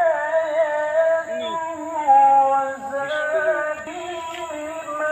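Background music: a song with a singing voice, held notes with vibrato over a steady accompaniment.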